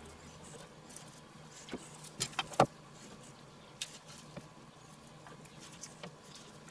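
Small clicks and taps of hand skewering, as pork chunks and onion pieces are pushed onto wooden skewers over a cutting board and a metal bowl. A quick run of three sharper clicks comes a couple of seconds in and is the loudest, with a few single ticks after it.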